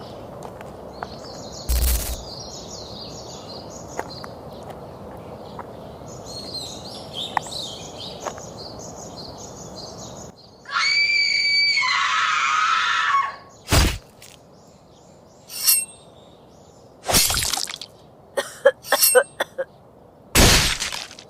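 Outdoor ambience with faint bird chirps and one loud short burst about two seconds in; then, after an abrupt change, a loud high cry held for about three seconds that drops in pitch, followed by several short, loud bursts of noise with silence between them.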